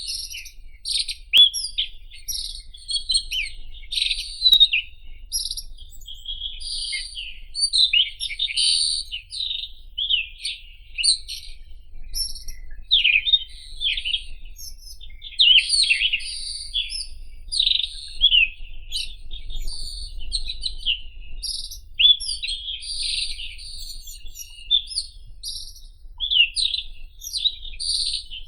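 White-throated robin singing: a fast, near-continuous stream of varied, high, quickly sliding phrases with only brief pauses between them.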